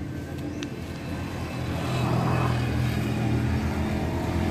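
A motor vehicle engine running steadily, getting louder about two seconds in.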